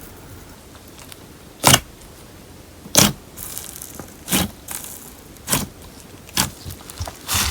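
Slime mixed with paper clay being squeezed and kneaded by hand: six short crackling presses about a second apart.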